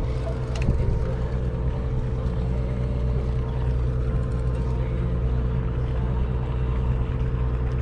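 Party boat's engine running steadily, a continuous low drone with a steady hum above it.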